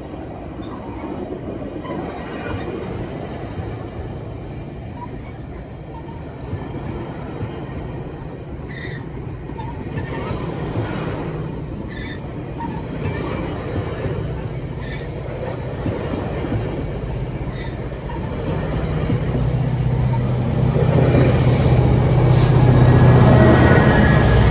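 GO Transit commuter train moving on the rails, its wheels giving many short, high-pitched squeals. A low steady hum grows louder over the last few seconds.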